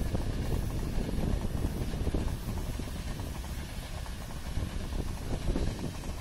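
CRH high-speed electric multiple unit passing at low speed: a steady rumble of wheels on the rails.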